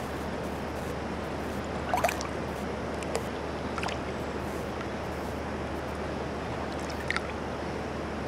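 Swimming-pool water lapping with a few small splashes, the loudest about two seconds in and another near seven seconds, over a steady rushing background.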